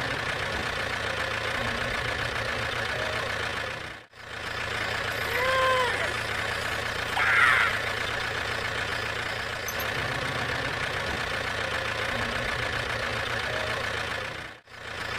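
Small engine running steadily, cut off abruptly twice. A short rising-and-falling squeak comes about five seconds in, and a brief brighter rasp about two seconds later.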